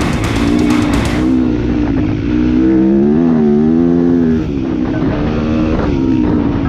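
Dirt bike engine running, its pitch rising and falling as the throttle is worked, most clearly about three to four seconds in. Guitar strumming stops about a second in.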